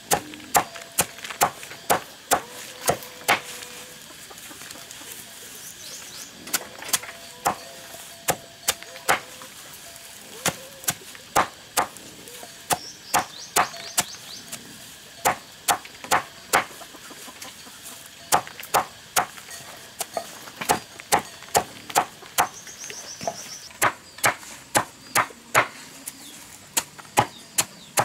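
Large cleaver chopping a heap of leafy greens on a tarp over dirt ground. The chops come in quick, uneven runs of about two to three a second, with a few short pauses.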